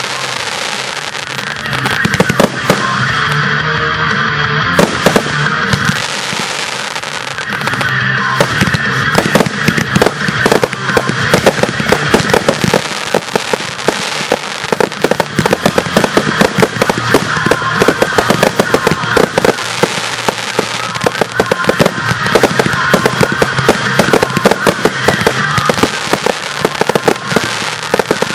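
A fireworks display in full barrage: aerial shells and comets bursting in overlapping reports, coming thick and fast from about nine seconds in, with the show's music playing underneath.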